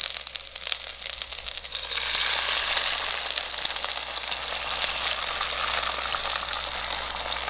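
Chicken tenders, onion and red pepper frying in coconut oil in a hot pan, with a steady crackling sizzle. About two seconds in the sizzle grows louder and fuller as beaten egg is poured over them.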